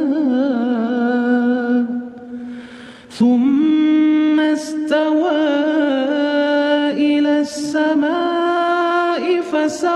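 A solo voice chanting the Quran in Arabic in a melodic tajwid style, holding long, ornamented notes. The voice breaks off for a breath about two seconds in and comes back a second later at a higher pitch.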